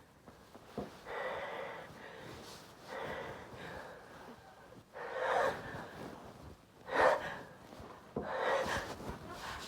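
A person gasping in sharply, about five times at roughly two-second intervals, the in-breaths of a sneeze building up that has not yet come. The gasp about seven seconds in is the sharpest and loudest.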